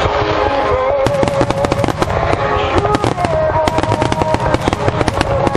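Fireworks display: a rapid run of aerial shell bursts and crackles, several sharp bangs a second, over music with a slow held melody.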